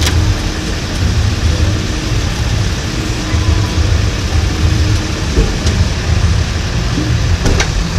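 Tow truck's engine running with a steady low rumble, with a few short metallic clicks from the towing gear.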